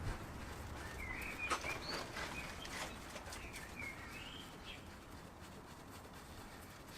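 Faint bird chirping, a couple of short warbling phrases about a second in and again around three to four seconds, with a few light clicks.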